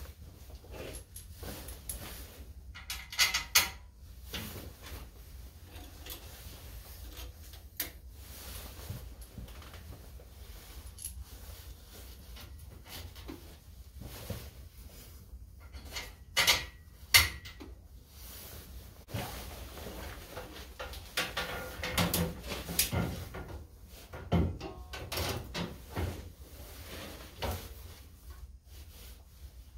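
Intermittent clinks, knocks and rattles of steel as a perforated-mesh grill with an angle-iron frame is fitted and bolted onto a tractor's front brush guard. The loudest knocks come a few seconds in, about halfway through, and again in the last third.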